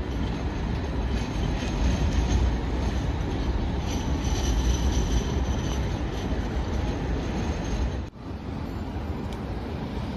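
Light rail tram running on its tracks, its wheels squealing in high thin tones that grow strongest about four to seven seconds in. The sound cuts off abruptly about eight seconds in, and steady wind noise on the microphone follows.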